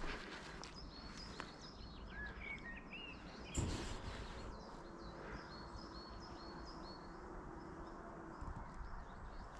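Faint outdoor ambience with several songbirds chirping and calling, and a brief thump about three and a half seconds in.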